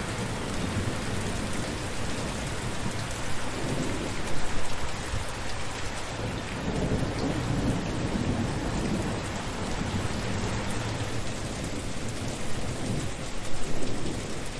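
Steady rain falling, with low rumbles of thunder swelling about four seconds in and again near the end.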